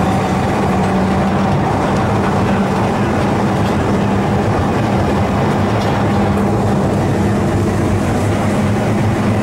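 Vintage Porto heritage tram running along street track, heard from its front platform: a steady hum over the rumble of the wheels on the rails.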